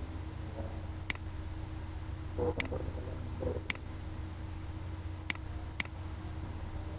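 Computer mouse clicking five times at uneven intervals, the last two about half a second apart, over a steady low electrical hum.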